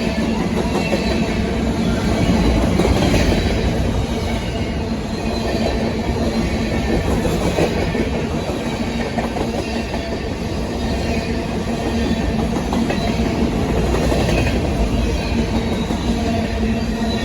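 Loaded grain train of covered hopper cars rolling past at speed: a steady rumble with wheels clacking over rail joints, swelling and easing slightly.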